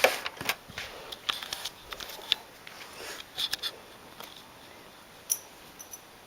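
Handling noise from a camera being set down: a run of clicks, knocks and rustles over the first few seconds, then one sharp click a little after five seconds.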